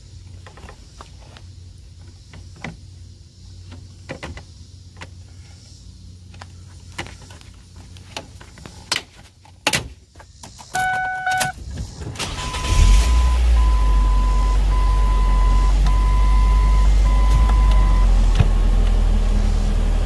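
Hard plastic clicks and knocks as an under-dash storage compartment is handled and snapped into place, two loud snaps near the ten-second mark. A short chime follows, and about twelve seconds in the 2007 Ford Focus's four-cylinder engine starts and idles steadily while a warning chime beeps five times.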